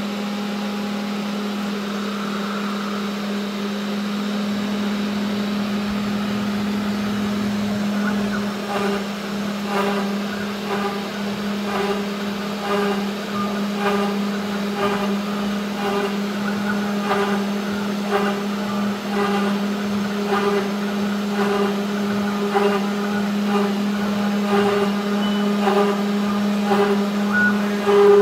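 A CNC 3040 router's spindle runs with a steady hum. From about eight seconds in, its V-bit engraves the wooden board in short repeated bursts of cutting noise, roughly one a second.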